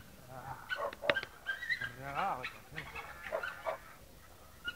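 Dog whimpering and yipping in a string of short, high cries, with a man's voice briefly among them about two seconds in.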